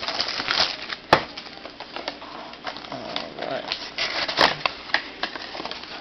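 Hands handling and opening a cardboard trading-card box: irregular taps, scrapes and rustles, with a sharp click about a second in and another a little after four seconds.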